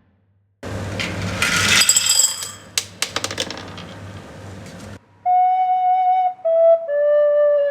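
A noisy, clicking texture that fades away, followed about five seconds in by a recorder playing three held notes, each a little lower than the last.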